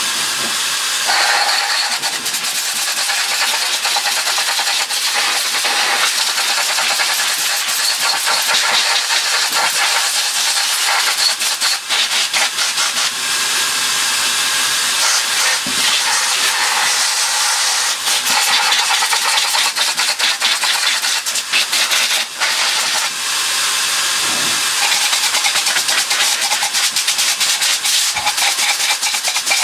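Compressed air from an air-line nozzle blasting into the small cyclones of a Dyson V6's inner cone assembly to blow out caked dust: a loud continuous hiss that swells and dips a little as the nozzle moves.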